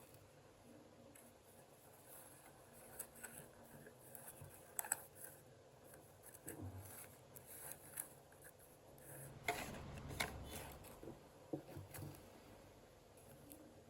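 Faint handling of a facial kit's packaging as it is opened: scattered light clicks and rustles, with a louder burst of rustling about nine and a half seconds in.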